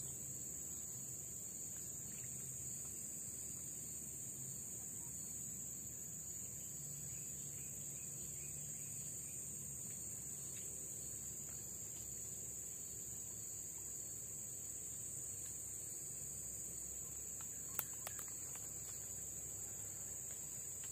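A steady high-pitched drone of insects in swamp forest runs on without a break. Near the end there is one sharp click, followed by a fainter one.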